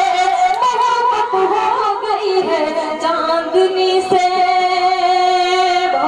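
A woman singing a ghazal couplet in a slow, melodic style into a microphone. A held note gives way about half a second in to ornamented runs that bend up and down, then settles into a long, steady held note that lasts almost to the end.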